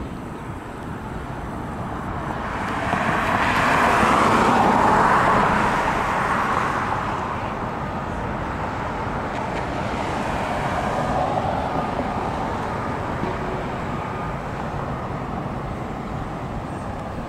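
Street traffic: a car passes close by, swelling and fading about three to seven seconds in, with a second, fainter pass around eleven seconds, over steady roadway noise.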